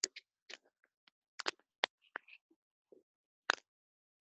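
A handful of sharp clicks and taps at irregular intervals, with a few faint short sounds between them.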